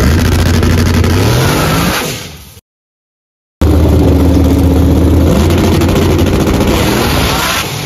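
Drag-racing pickup truck's engine at high revs, rising in pitch and fading as the truck pulls away. This happens twice, in two separate clips with about a second of silence between them.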